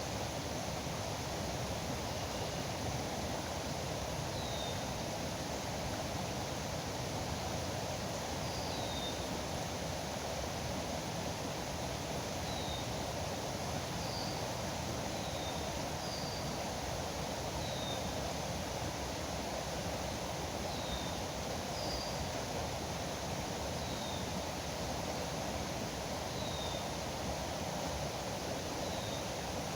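River water rushing steadily. A bird repeats a short, high, falling call every second or two.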